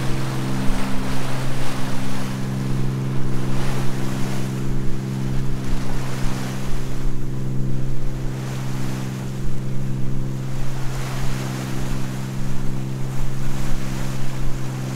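Fishing boat's diesel engine running steadily under way, a constant low drone, with the bow wave rushing along the hull and swelling and fading every couple of seconds.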